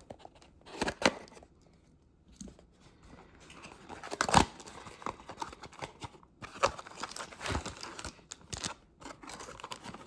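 A Star Wars Rivals character booster pack being opened by hand: packaging tearing and crinkling in irregular rustles and clicks, with one sharp snap about four seconds in.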